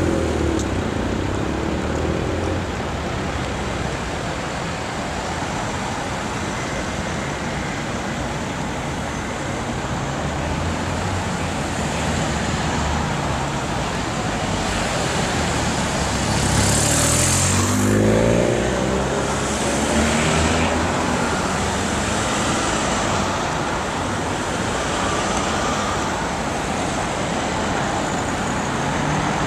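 A column of cars driving past on a city street, a steady run of engines and tyre noise. About halfway through, one vehicle accelerates past close by with a rising engine note.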